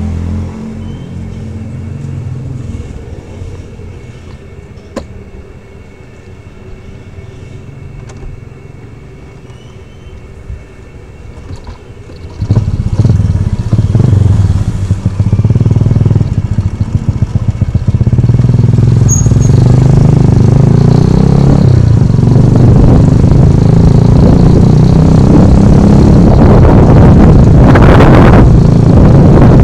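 Motorcycle engine running quietly at idle, then about twelve seconds in it suddenly gets much louder as the bike pulls away and rides on at a steady pace.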